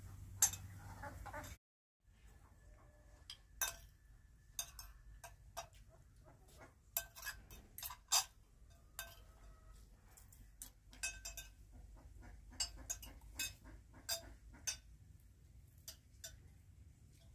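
Spoons clinking and scraping against china plates and a metal serving dish as people eat: scattered light clicks, a few with a short ring.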